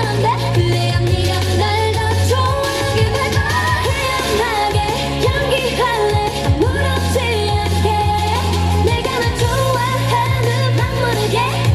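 Loud K-pop girl-group dance track with female singing over a heavy, steady bass beat.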